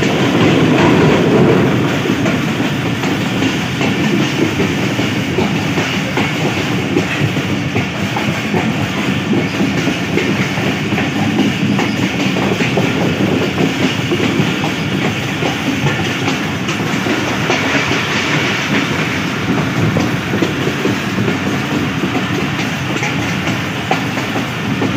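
A passenger train running along the track, heard from inside a coach: a steady, loud rumble and clatter of wheels on the rails.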